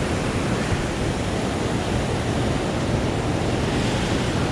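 Steady rushing noise of strong wind and water, with the wind buffeting the microphone.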